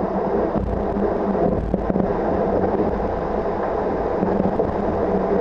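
Rushing water and wind as an IMOCA 60 ocean racing yacht sails fast through 4 to 5 metre waves at 15 to 20 knots, heard from on board, with a steady low hum underneath.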